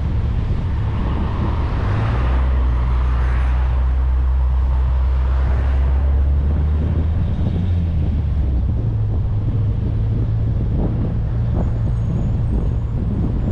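Old VW Gol's 1.6-litre CHT engine running at highway speed, heard from outside the car with steady wind and road noise. The low engine hum shifts higher about nine seconds in, and twice the rushing swells up and fades away.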